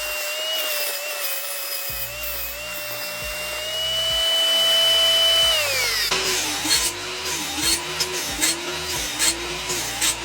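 Small power tool motor whining steadily, pitch rising slightly before it winds down about five and a half seconds in. Then a rhythmic series of strokes, roughly one every 0.7 seconds, with clicks.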